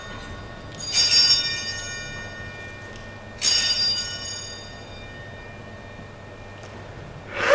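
Altar bells rung three times, each ring starting suddenly and fading away: about a second in, midway, and near the end. They mark the elevation of the host at the consecration.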